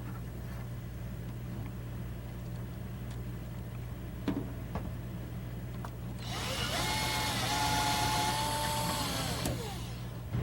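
Power drill run for about three seconds about six seconds in, its motor whine rising in pitch, holding, then falling away as it stops, typical of fastening hardware to secure a file cabinet to the wall. A few light clicks come before it, over a steady low hum.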